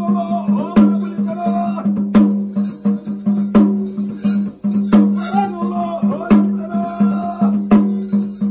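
Traditional ritual music: drums and jingling percussion keep a steady pattern, with a loud stroke about every one and a half seconds, over a constant low drone and a wavering melody line.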